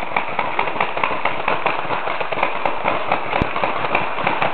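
Many paintball markers firing at once: a dense, continuous crackle of rapid pops.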